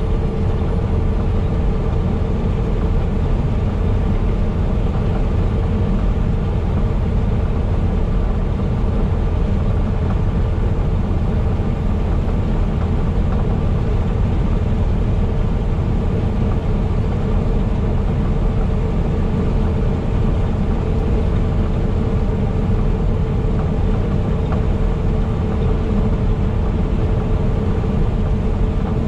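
Semi truck driving at a steady cruise: a constant low engine drone and road rumble with a faint steady hum above it, unchanging throughout.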